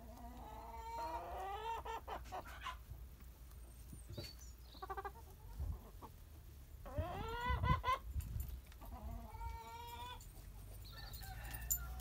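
Domestic hens clucking and calling, a series of drawn-out calls that rise in pitch and then hold, the loudest about seven seconds in.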